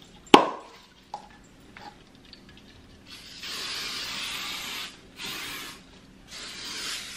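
A sharp click, then a disinfectant spray hissing in three bursts, the first and longest about a second and a half.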